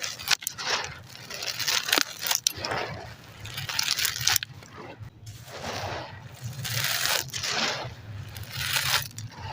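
Dry baked concrete and ash chunks being crumbled and crushed, gritty crunching and scraping in repeated bursts about once a second, with a few sharp snaps.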